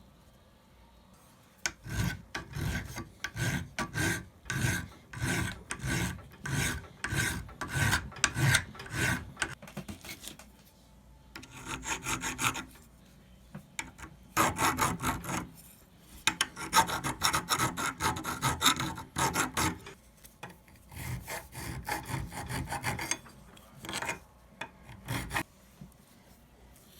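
Hand-filing: repeated back-and-forth file strokes, about two a second, in four runs separated by short pauses.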